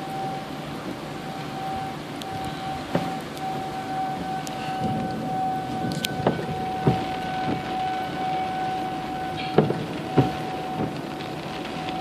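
Federal Signal 2001-130 outdoor warning siren holding one steady tone, sounding for a tornado warning, over a haze of wind and rain, with scattered sharp knocks.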